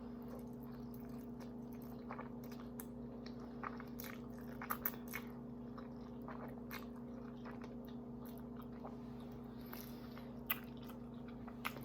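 A person chewing food close to the microphone, with scattered soft mouth clicks over a faint steady hum.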